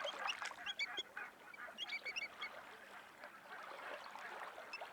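A flock of birds calling: many short calls overlapping, busiest in the first two seconds or so and thinning out after.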